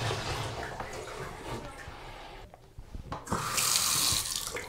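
Bathroom faucet running a thin stream into a ceramic sink basin and down the drain, fading away. After a brief gap, the tap runs again with a louder splashing hiss for about a second near the end.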